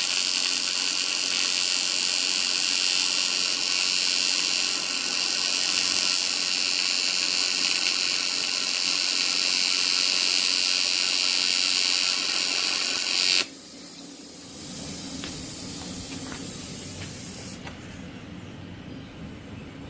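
TIG welding arc on aluminium from a Retop WSE 200 machine: a steady, loud buzzing hiss that cuts off sharply about 13 seconds in. A softer hiss carries on for about four seconds after the arc stops, then drops away too.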